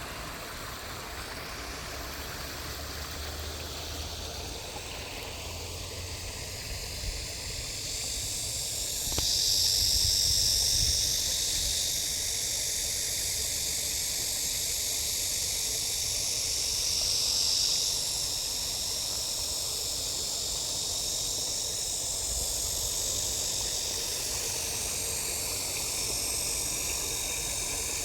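A stream running, a steady rushing hiss of flowing water that grows louder about eight seconds in.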